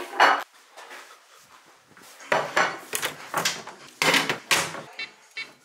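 Cutlery and dishes clattering: a run of short, sharp scrapes and knocks, mostly in the middle of the stretch.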